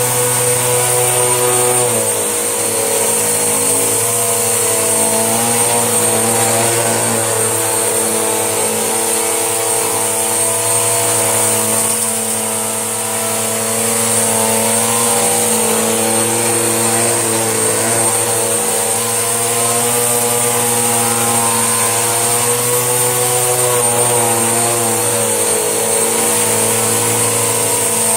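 Panasonic bagged vacuum cleaner running steadily with a high whine, its motor pitch wavering slightly as it vacuums up a mess-test pile of hair and debris.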